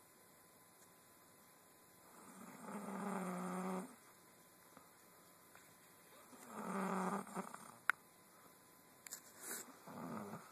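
Snoring: two long snores, each over a second, a few seconds apart, with a short sharp click between them and shorter, softer breathing sounds near the end.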